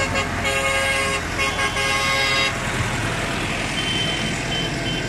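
A vehicle horn tooting in a quick series of short blasts for about the first two and a half seconds, over the steady running of a passing tractor's engine. After the horn stops, the engine and road noise carry on.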